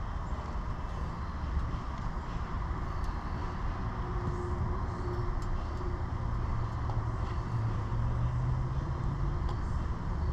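A steady low mechanical rumble and hum, with a few faint ticks.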